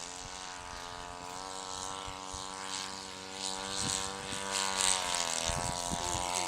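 Radio-control model airplane engine and propeller droning in flight. The pitch sags slightly a few seconds in, then rises, and the engine grows louder as the plane comes closer.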